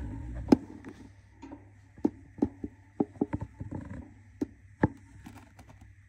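Budgie hen shifting and turning in a wooden nest box, her claws and body scratching and tapping on the box floor and rustling the nesting material. The sound is a rustle at first, then a dozen or so irregular sharp taps and clicks, the loudest about half a second in.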